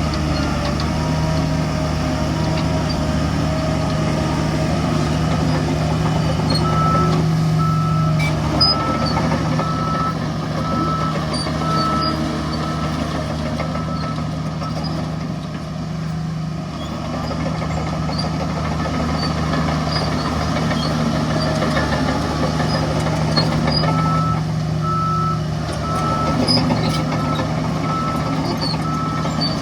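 Heavy diesel machinery engines running steadily. A reversing alarm beeps about once a second for several seconds, starting about a quarter of the way in, and again near the end.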